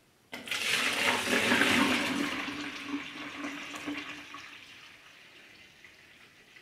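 Cooled beer wort poured in a stream from a stainless steel brew pot into a fermenter jar, splashing and foaming. It starts suddenly just after the start, is loudest for about two seconds, then gradually fades.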